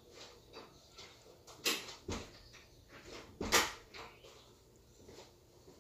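A few scattered knocks and bumps from someone moving about a home, with sharper ones just under two seconds in, just after two seconds, and the loudest about three and a half seconds in.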